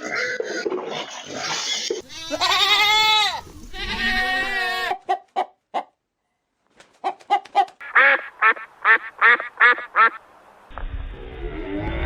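Farm animal calls: a goat bleating in several long wavering calls, then a quick run of short honking calls from waterfowl. Near the end a low, rising rumble starts.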